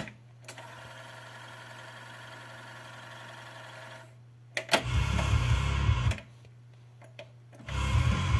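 Grundig CF 5500-2 three-motor cassette deck: music playback is cut off by the transport button, and the tape winds back with a faint steady whir and low hum for about four seconds. Then come transport clicks, a second and a half of music, another quiet stop with a couple of clicks, and the music resumes near the end.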